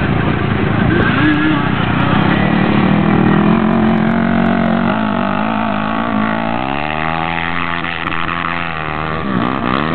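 Quad ATV engines running. About six and a half seconds in, one revs up, its pitch rising and holding high as it climbs a sand dune, then dropping near the end.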